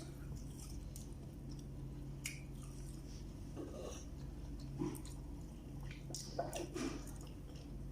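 Close-up chewing and biting while eating, with a few short wet smacks and clicks scattered through, over a steady low hum.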